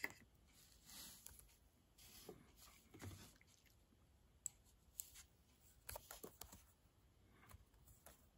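Near silence with faint, scattered computer keyboard keystrokes, a few quick taps at a time from about halfway through.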